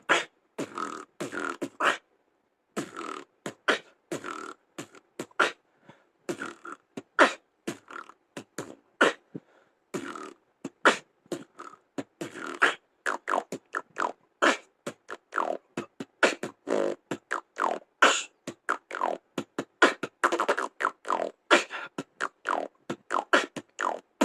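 Human beatboxing freestyle: a fast run of percussive mouth sounds, kick-, snare- and hi-hat-like strokes, mixed with lip roll bass. There is a brief pause about two seconds in, and the beat gets busier from about halfway.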